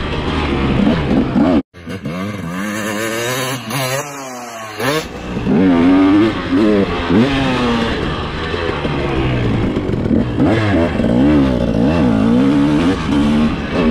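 Motocross bike engine, close to the onboard microphone, revving up and falling off again and again as the rider works the throttle and gears around the dirt track. The sound cuts out for a split second just under two seconds in.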